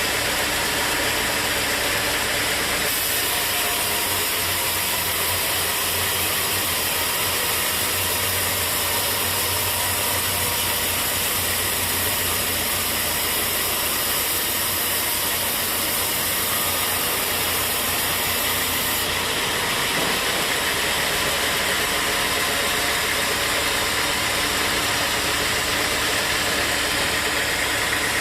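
Sawmill machinery running steadily, an engine-like drone under dense hiss. The sound changes abruptly about three seconds in and again near the end.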